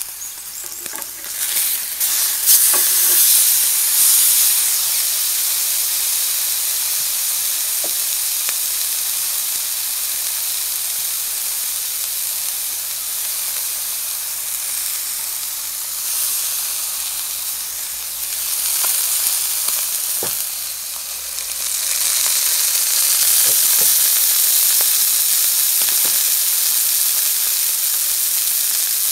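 Elk steak sizzling in a hot enamelled cast-iron pan: a steady high hiss of searing fat and juices with scattered small pops and crackles. The sizzle swells louder about two seconds in and again about two-thirds of the way through.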